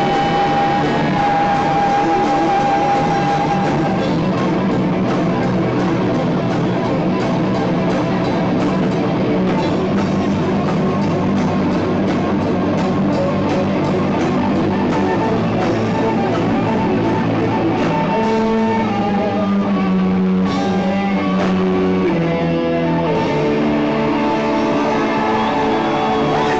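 Live rock band playing through a PA: electric guitars, bass and drum kit. A long high note is held at the start, and a melodic line moves in steps over the band near the end.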